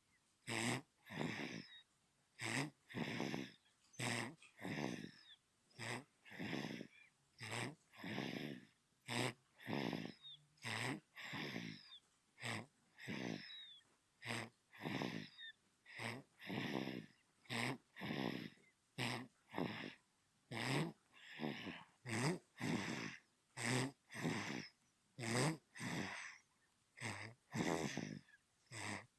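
A newborn baby snoring in its sleep: short, snuffly breaths in and out with a rough buzz, about three every two seconds, in an even rhythm.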